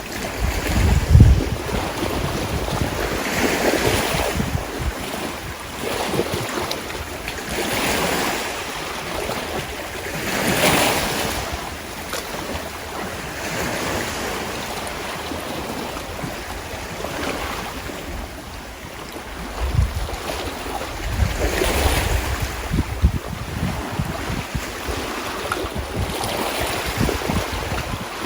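Sea waves washing in, the sound swelling and ebbing every few seconds. Wind gusts rumble on the microphone about a second in and again about two-thirds of the way through.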